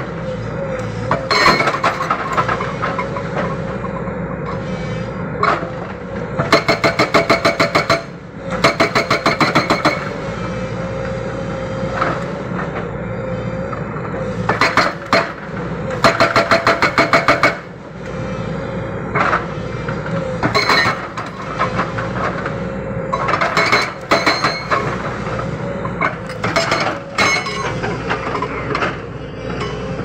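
Hydraulic rock breaker on a JCB 220 excavator hammering rock in rapid bursts of blows, each burst lasting a second or two and repeated many times, over the steady running of the excavator's diesel engine.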